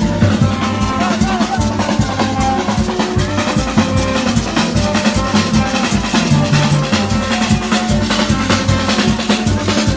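Street band of marching drummers beating large barrel drums in a steady rhythm, with held low notes and melody lines playing along.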